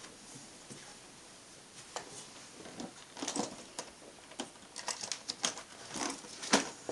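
Small items clicking and knocking as they are rummaged through in an aluminium carrying case: an irregular run of short clicks that begins about two seconds in and grows busier, with the loudest knock near the end.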